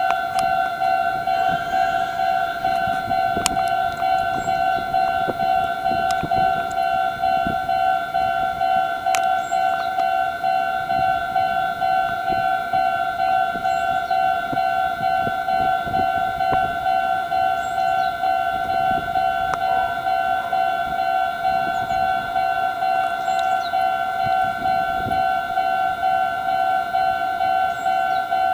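Japanese level-crossing warning bell ringing: an electronic two-note tone repeating in an even pulse, sounding to warn of an approaching train.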